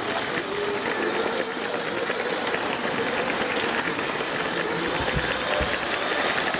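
Lego train's small electric motor running steadily with a faint hum, its wheels and gearing clattering rapidly along the plastic track. Two brief low thumps about five seconds in.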